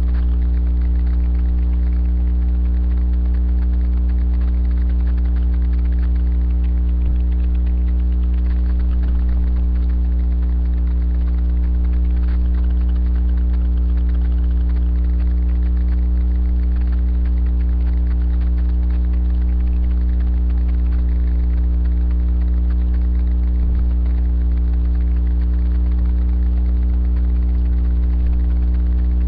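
Steady electrical mains hum in the recording: a deep, unchanging drone with a stack of fainter steady tones above it.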